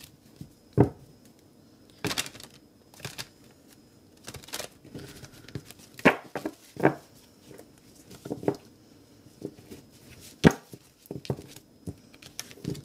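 Tarot cards being shuffled by hand: irregular snaps and rustles of the deck, spaced unevenly with short pauses between them.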